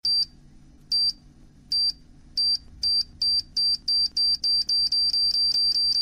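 A countdown-style electronic beeping sound effect. Short beeps at one high pitch start about a second apart and speed up steadily until they nearly run together.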